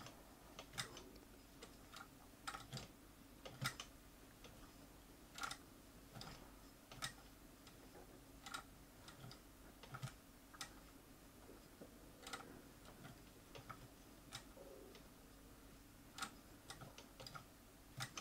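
Near silence over a low steady hum, broken by faint, irregularly spaced clicks and light taps.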